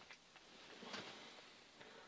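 Faint handling sounds: a few soft clicks and a short scuff or crunch about a second in as a small ice-fishing rod is laid down on the snow beside the hole.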